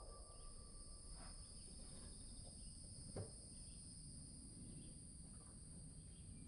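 Faint, steady high chirring of insects such as crickets, with a faint click about three seconds in.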